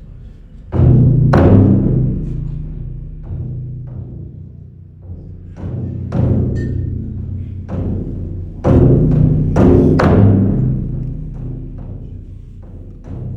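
Drum-led percussion music: deep, booming drum strikes that ring on and die away, with lighter hits between them. The heaviest strikes come about a second in and again around nine to ten seconds in.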